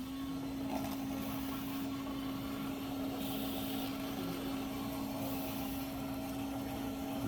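Starbucks coffee machine running, a steady motor hum that comes on abruptly and holds one even pitch.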